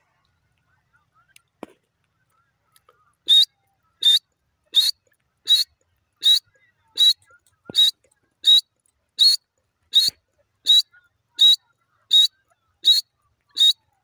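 Grey francolin calling: a regular series of short, sharp, high-pitched notes, about fifteen, one roughly every 0.7 s, starting about three seconds in.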